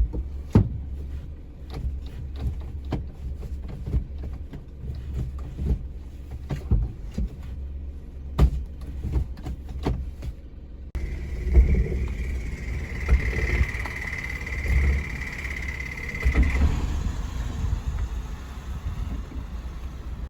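Suzuki Every DA64V van driving with an abnormal drivetrain noise that sounds as though something is about to break: a low rumble with repeated sharp knocks and clunks, and from about halfway a high whine that holds for several seconds. Noise of the kind suspected to come from a failing transmission or differential.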